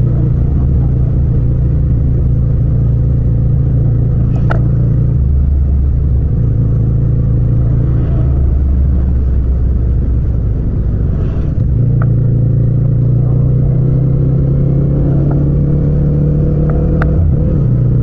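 Yamaha MT-07's 689 cc parallel-twin engine running steadily in fourth gear at about 50 km/h. It eases off briefly about ten seconds in, then pulls again. A few sharp clicks are heard, about 4, 12 and 17 seconds in.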